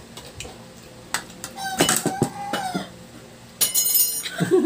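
A metal spoon drops and clatters, giving a bright ringing clang about three and a half seconds in, after a few lighter clinks of cutlery.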